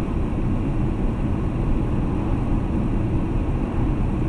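Steady low rumble of a car driving at highway speed, with engine and tyre noise heard from inside the cabin.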